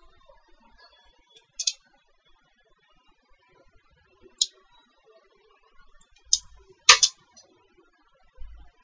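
Scattered sharp clicks of a computer mouse and keyboard, about five in all, the loudest a quick pair about seven seconds in, with a soft low thud near the end.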